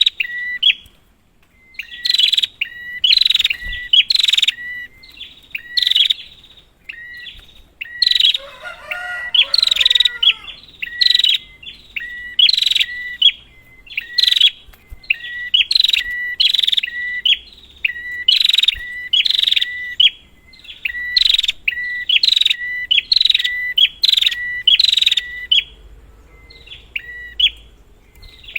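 Prenjak (prinia) calling in loud, rapid runs of sharp, ringing chirps, several a second, with short pauses between runs. A lower, more varied chatter joins in around eight to ten seconds in. This is a lure call meant to provoke a silent prenjak into singing.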